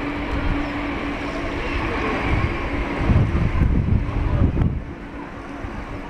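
Boeing 767 jet engines running as the airliner rolls out on the runway after landing: a steady rush with a low hum. Strong wind buffets the microphone in loud gusts about halfway through, easing near the end.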